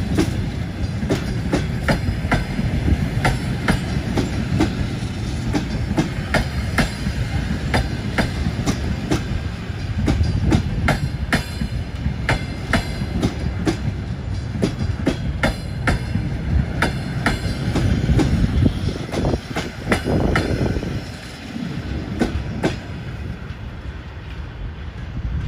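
Passenger coaches rolling away over the track, the wheels clicking over rail joints and switch points with a low rumble. The sound grows quieter in the last few seconds as the last coach draws off.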